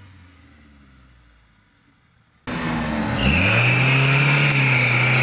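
Suzuki Samurai off-roader's engine, faint and fading at first; then, loud after a sudden jump about halfway in, it revs up and is held at high revs under load in mud, with a steady high-pitched whine on top.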